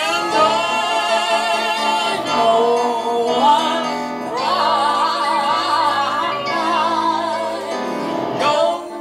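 A woman singing long held notes with vibrato, accompanied by an electric keyboard.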